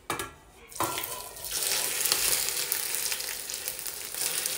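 Hot oil with food colouring poured from a small steel pan onto a pot of parboiled rice, sizzling steadily as it hits the rice. A brief knock comes at the very start, and the sizzle builds from about a second in.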